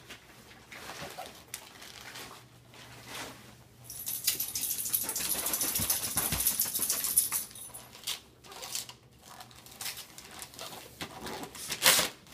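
Christmas wrapping paper being torn and crinkled as presents are unwrapped: scattered short rips, then a longer stretch of continuous ripping and rustling from about four to seven seconds in, and a sharp loud rip near the end.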